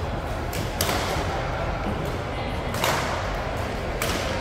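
Badminton rackets striking a shuttlecock: three loud, sharp hits about one to two seconds apart, with a fainter hit just before the first, each ringing briefly in a large hall over a steady murmur of background noise.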